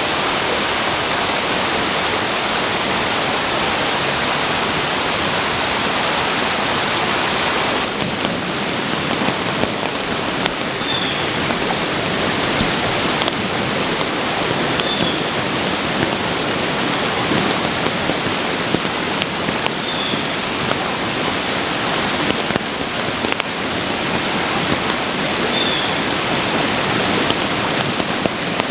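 Steady rush of a brook in flood, running high. About eight seconds in the noise changes abruptly to a patter like rain, and a short high chirp comes every four to five seconds after that.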